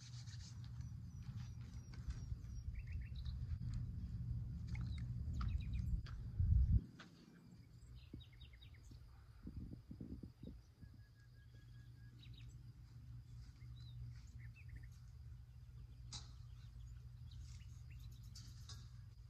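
Small birds chirping and calling on and off, over a low rumble that is heavy for the first seven seconds, swells sharply and then drops away, leaving a faint background with a thin steady high tone.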